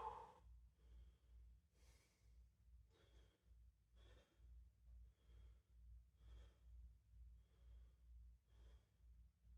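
A man's faint, rhythmic heavy breathing, about one breath a second, from the exertion of kettlebell swings.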